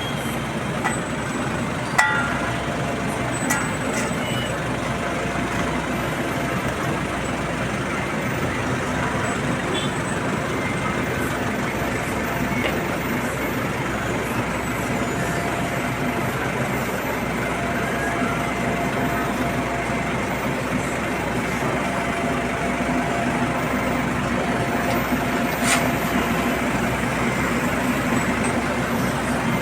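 Heavy road-paving machinery running steadily, engines at a constant pitch, with a couple of sharp metallic clicks: one about two seconds in and one near the end.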